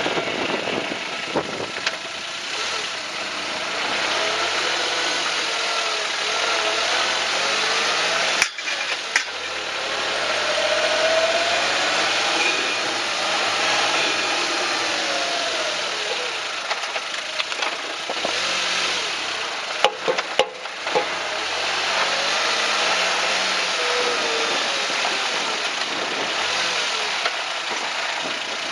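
Suzuki Jimny JB23's engine and drivetrain running on the move, picked up by a camera fixed to the chassis frame, so it sounds thin; the engine pitch rises and falls with speed. A sharp knock about eight seconds in and a pair around twenty seconds in are the 'kakon' clunk from the suspension that the owner is tracking down as an abnormal noise.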